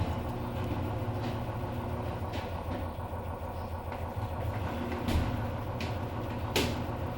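Samsung washer-dryer drum in its spin cycle, a steady low hum with a few short clicks, the sharpest near the end. It spins without banging or jumping, its shock absorbers newly replaced.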